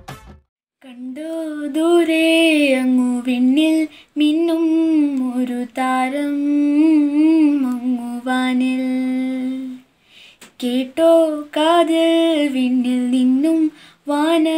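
A girl's solo voice singing a slow Christmas carol melody with no accompaniment, in long held phrases with a slight waver in pitch, pausing briefly about four and ten seconds in.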